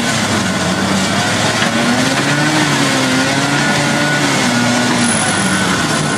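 Excavator engine running steadily, its pitch rising and falling gently, over a constant din of broad noise.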